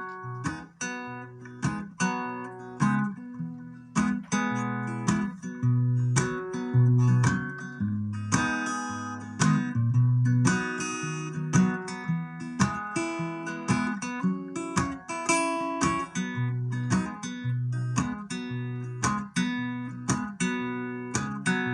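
Acoustic guitar strummed in a steady rhythm, playing a song's instrumental introduction.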